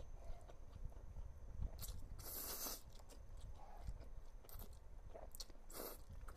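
A person eating thick instant ramen noodles: chewing and biting, with a few short, sharp noisy bursts, the longest about two seconds in.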